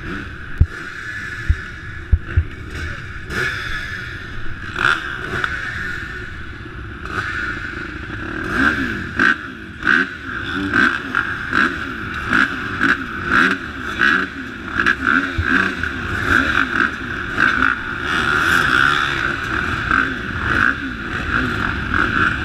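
Several motocross motorcycle engines running at a starting line, revved up and down again and again, with the loudness swelling and dropping with each rev.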